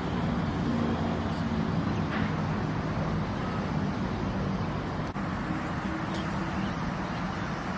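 Steady outdoor background noise with a low rumble of distant road traffic, broken by a brief dropout about five seconds in.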